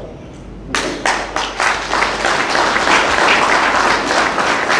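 Audience applause breaking out under a second in and building to dense, steady clapping.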